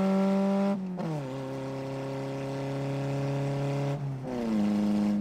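Car engine heard from inside the cabin while driving. About a second in, the revs drop sharply, as on an upshift, and the engine then pulls steadily in the higher gear. Near the end there is a brief break and the revs climb quickly back up, as on a downshift.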